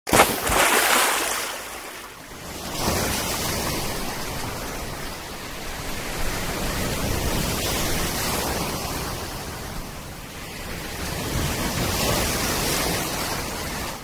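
Sea waves breaking and washing in shallow surf close by, a steady rushing that swells in surges: strongly at the start, again about three seconds in, and near the end.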